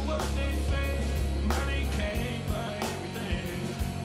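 Live rock band playing a song: electric bass guitar, electric guitar and drum kit, with a heavy bass line, sustained guitar notes and drum hits on a steady beat.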